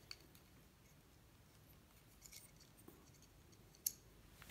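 Near silence broken by a few faint small clicks and ticks of a thin wire ornament hook being handled and worked off the ornament's hanging loop; the sharpest click comes near the end.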